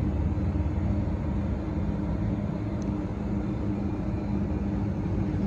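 Steady low hum of running rooftop HVAC machinery, with a few steady low tones over an even rumble.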